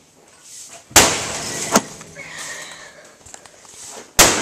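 Sledgehammer blows on a TV: a heavy crash about a second in, with breaking and rattling after it and a smaller sharp crack, then another heavy crash near the end.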